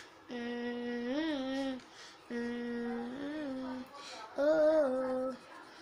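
A boy humming: three long held notes on nearly the same pitch, each ending with a small rise and fall.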